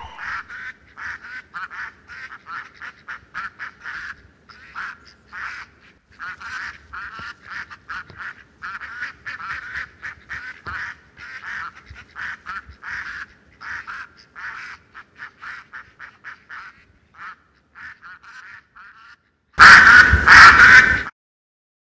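Ducks quacking in a long, irregular run of quick quacks. Near the end comes a much louder burst lasting about a second and a half, then it stops suddenly.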